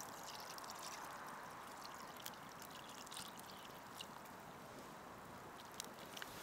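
Water poured in a steady stream into an aluminium camping pot of chopped potatoes, with a few faint crackles from the wood fire beneath.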